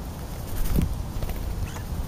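European starlings feeding close to the microphone: soft pecking taps and scuffling among the food, with a few faint short high calls.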